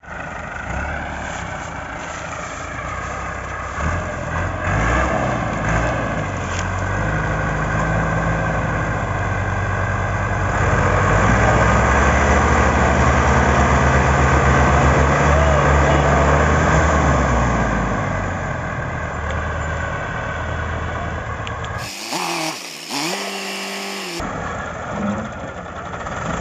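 Diesel tractor engines running, with the revs rising about ten seconds in and falling back a few seconds before the end. Near the end, a different two-second sound briefly cuts across the engine noise.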